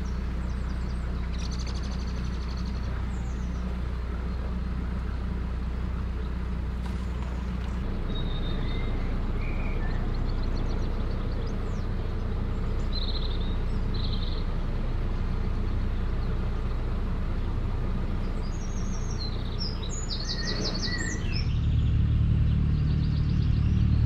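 A narrowboat's engine running steadily while cruising, a low hum, with birds chirping over it now and then. The engine note shifts about a third of the way in and grows louder and deeper near the end.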